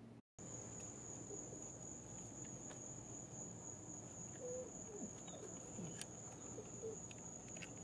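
Steady high-pitched trill of crickets, one unbroken tone that starts just after a brief gap near the start, with a few faint short chirps beneath it.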